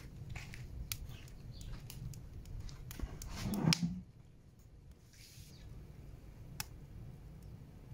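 Kindling and firewood crackling as a fire catches in a barrel stove's firebox, with scattered sharp pops. About three and a half seconds in, a log is laid onto the fire with a short scraping knock against the wood.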